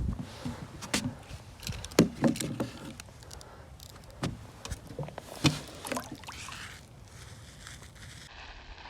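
Irregular splashes and sloshing water as a caught bass is released back into the water, the strongest splashes about two and five and a half seconds in.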